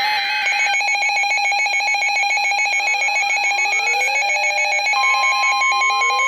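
Overlapping electronic emergency alert tones: a rapid warbling beep pattern, rising sweeps repeating from about three seconds in, and a steady alarm tone joining about five seconds in.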